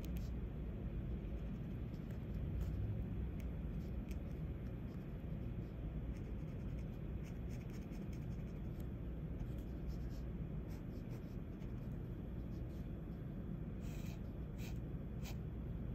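Ink pen tip scratching on drawing paper in many short strokes, a few stronger strokes near the end, over a steady low hum.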